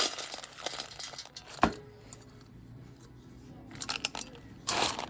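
Dog food being handled and portioned out: crinkly rustling with a single sharp knock about a second and a half in, then a louder burst of rustling near the end.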